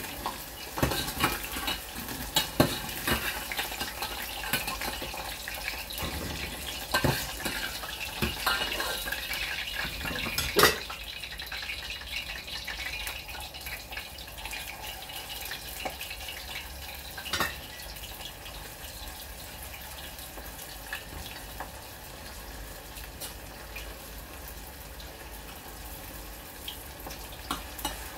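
Hot oil sizzling in a stainless steel saucepan as fried pork ribs are lifted out, with a metal slotted spoon clinking against the pot over the first ten seconds or so. After that comes a steadier sizzle with a few scattered clicks.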